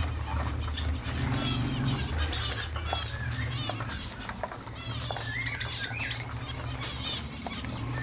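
A flock of Indian ringneck parakeets chattering while feeding: many short, arched chirps and squawks overlapping one another, with scattered small clicks and a low steady hum underneath.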